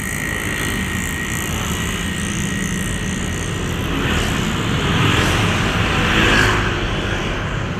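Road traffic on a flyover. An intercity coach drives past close by, and its engine and tyre noise swell to a peak from about four to six and a half seconds in, over the running of motorcycles and cars.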